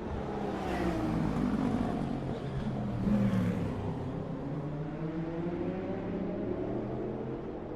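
Le Mans race cars passing by, engines downshifting into a corner: the engine note falls in pitch, peaks in loudness twice as cars go past, then climbs again as they accelerate out.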